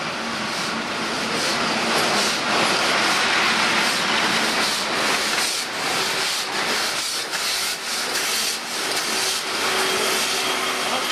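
ČSD class 498.1 'Albatros' three-cylinder express steam locomotive at close range, a loud steady hiss of escaping steam with irregular knocks from the wheels and running gear.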